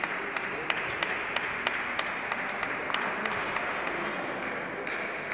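Table tennis balls being struck and bouncing at several tables in a large hall: sharp, irregular clicks about three a second over a steady background hum of the hall.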